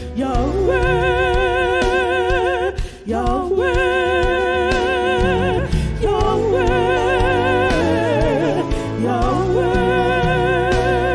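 Gospel worship music: long held, wavering sung or hummed notes with vibrato and pitch glides over a sustained bass, without clear words.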